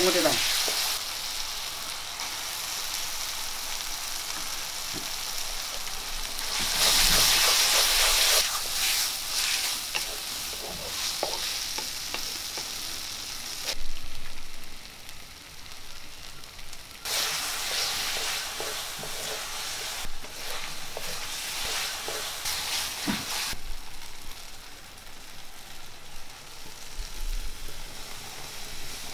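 Tomato and shallot masala sizzling in oil in a metal pan, stirred with a wooden spatula that scrapes now and then. The sizzle comes in stretches, louder at some moments and softer at others.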